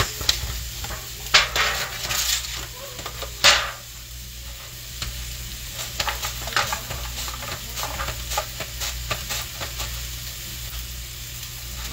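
Onion being sliced on a Tupperware mandoline slicer: a run of short, quick slicing strokes, a few every second, after some louder knocks and scrapes in the first few seconds.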